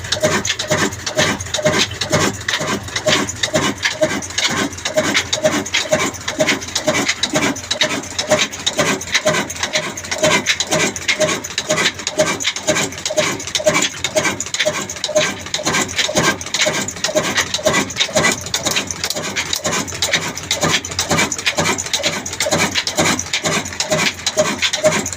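Old black single-cylinder diesel engine running steadily and driving a flour mill, with an even beat of about two pulses a second over the rasping of the mill.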